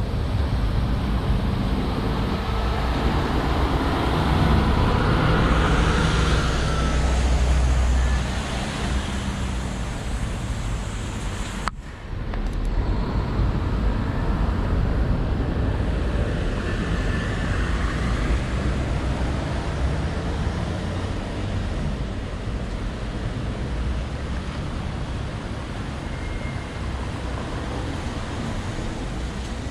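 Road traffic on a wet city street: a coach bus's engine rumbles loudest for several seconds early on as it drives past, then after a sudden break the sound settles into a steady traffic hum with tyre hiss.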